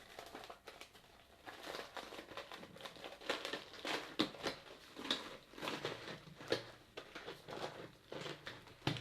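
A packet of snacks being crinkled and folded shut by hand, with irregular crackling rustles.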